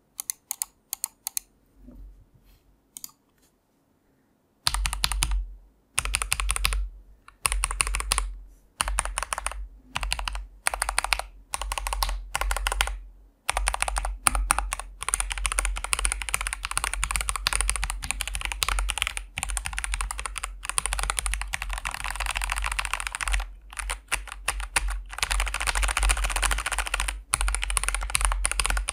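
Tester84 budget custom mechanical keyboard with factory-lubed switches, XVX pudding keycaps and still unlubed stabilizers, being typed on as a sound test. A few faint key presses at first, then from about five seconds in, bursts of typing broken by short pauses, becoming fast, almost continuous typing about halfway through.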